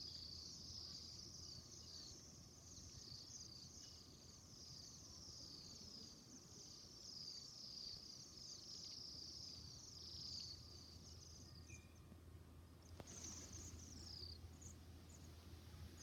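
A flock of small birds chirping faintly: a dense run of high, quickly repeated falling chirps that stops about twelve seconds in, then a shorter burst of chirps near the end.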